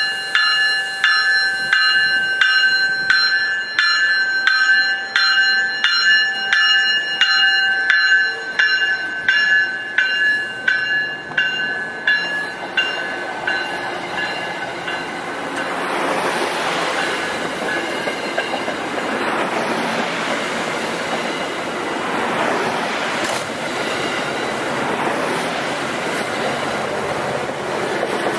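A bell rings with even strikes, about one and a half a second, and fades out about halfway through. Then the steady rushing clatter of an MBTA commuter rail train's wheels on the rails takes over as the bilevel coaches pass close by, with a low diesel hum building underneath.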